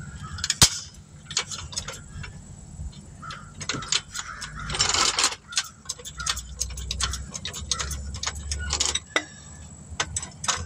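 Irregular metallic clicks and rattles of an old floor jack being worked under an SUV, with a loud click under a second in and a longer scrape about halfway. The jack is not working right.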